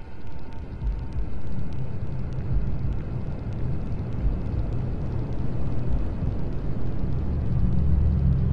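A low, steady rumble with a rushing noise above it, growing louder near the end.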